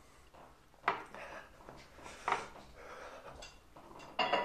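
A spoon scooping ice cream from a cup, with light scraping and two sharp clicks of the spoon against the container about a second and two seconds in.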